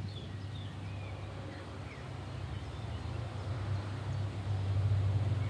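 Outdoor ambience: a few short, high bird chirps over a low steady rumble that grows slightly louder toward the end.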